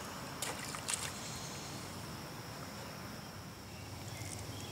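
Steady hiss of flowing creek water with a thin, steady high whine running through it. Two light clicks come about half a second and a second in.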